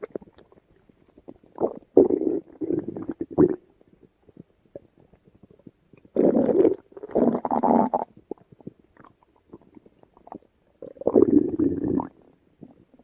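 Human stomach rumbling in three separate bouts, each lasting one to two seconds, with quiet gaps between them.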